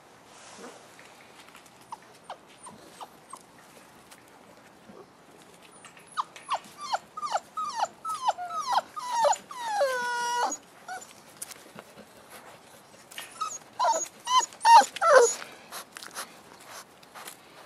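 Five-week-old Boerboel puppies yelping and whining as they play-fight. About six seconds in comes a quick run of short yelps, each falling in pitch, ending in one longer drawn-out cry. A second burst of yelps comes near the end.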